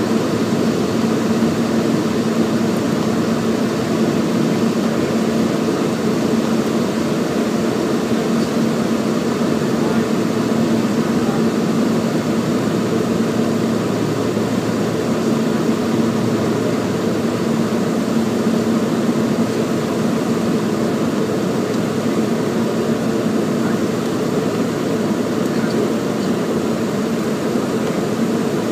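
Cabin noise of a Beechcraft King Air F90 on approach: its twin turboprop engines and propellers make a steady drone with a low hum, heard from inside the cabin. The hum shifts lower for a few seconds about halfway through.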